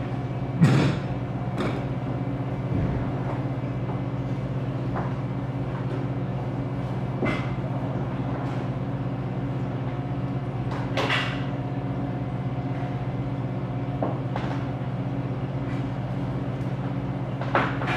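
Steady low machine hum, with a few scattered knocks and clatters; the loudest knock comes about a second in.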